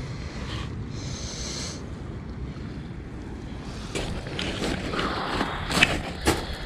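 Steady low rumble of wind and surf, then from about four seconds in a run of clicks and knocks from fishing tackle being handled, with two sharp knocks, the loudest sounds, near the end.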